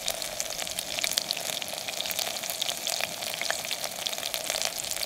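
Chunks of bear meat frying in bear fat in a small camp pot, sizzling with a steady dense crackle of tiny pops.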